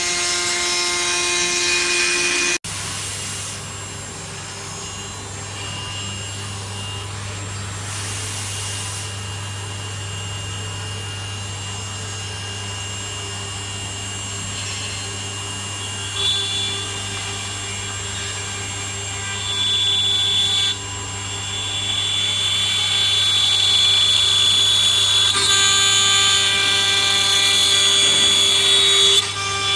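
CNC wood router spindle cutting wood: a steady high whine over the rasp of the cutter and a low hum. The sound changes abruptly about two and a half seconds in and grows louder in the last third.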